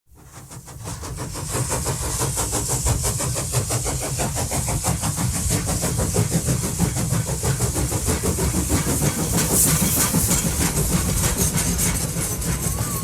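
A railway train running with a rapid, even pulsing noise, swelling up from silence over the first second or two and then holding steady.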